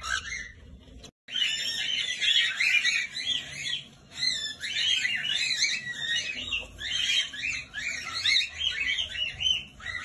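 Cockatiels chirping in a rapid, dense run of short high calls. There is a brief break about a second in.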